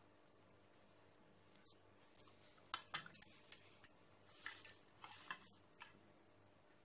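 Faint clinks and scrapes of a hand working crumbly nankhatai dough in a stainless steel bowl: a loose string of short clicks starting about two seconds in.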